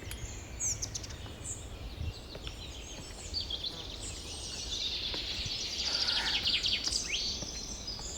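Birds chirping and trilling, many quick calls overlapping, with a high buzzing that thickens in the second half.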